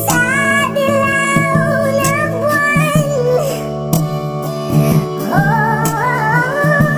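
Music: a pitched-up, chipmunk-style voice singing in Tagalog over the song's instrumental backing, holding long notes.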